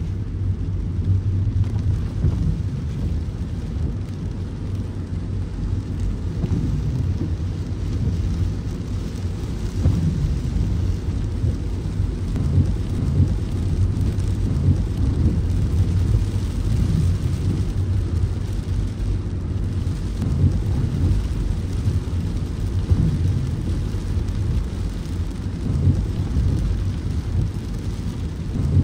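A car driving in heavy rain: a steady low rumble of the car on the wet road, with the hiss of rain over it.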